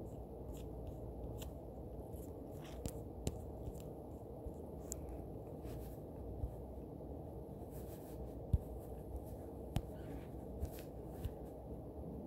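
Faint, irregular light taps and scrapes of a finger or stylus on a phone touchscreen during digital drawing, over a steady low hum, with a couple of sharper clicks near the end.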